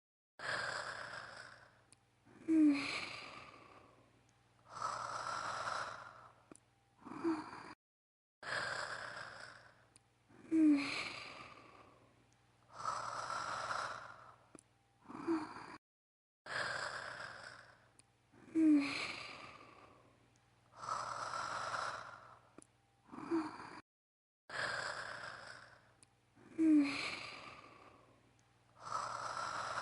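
A young woman's acted snoring, looped: each cycle of about eight seconds has a breathy intake, a sharp snort and a long sighing breath out. Brief gaps of dead silence fall between the repeats.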